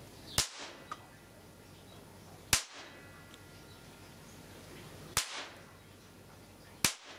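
Four sharp bangs as a charged capacitor bank is shorted through electronic components, roughly two seconds apart; the second, about two and a half seconds in, is the loudest.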